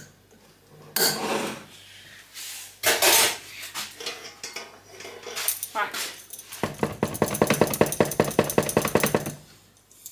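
Baking utensils knocking and scraping against a plastic mixing bowl of brownie batter, a few separate bursts, then a quick, even rattle lasting about three seconds.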